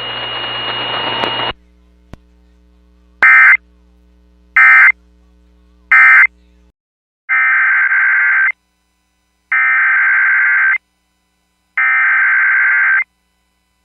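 Radio static with a steady tone for the first second and a half, then the warbling data bursts of EAS SAME coding. First come three short End-of-Message bursts about a second and a half apart, then three longer header bursts about two seconds apart, marking the start of a new alert.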